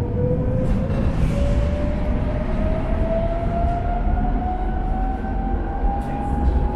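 Electric tram accelerating: the traction motors whine in one steady tone that climbs slowly in pitch, over the rumble of the wheels on the rails.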